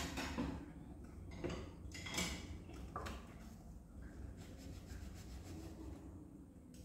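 Kitchen handling noises from hands working over an aluminium pot: four short rustles and scrapes in the first three seconds, then quieter.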